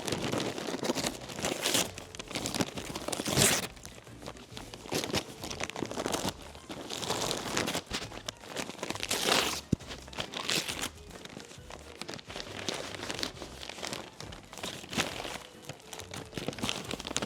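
Paper crinkling and tearing in irregular bursts as a dog rips open wrapped birthday presents with her mouth.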